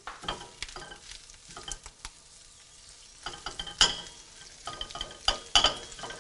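Arugula being tossed with tongs in a small skillet of hot olive oil: a faint sizzle under repeated clicks and scrapes of the tongs against the pan, the sharpest about four seconds in and again near the end.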